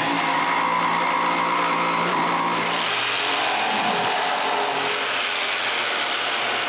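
Jigsaw running steadily as it cuts a sink opening in a countertop, its tone shifting about three seconds in.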